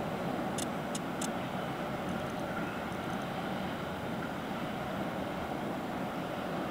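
Distant passenger train crossing a hillside viaduct: a steady, even rumble. Three brief clicks come about a second in.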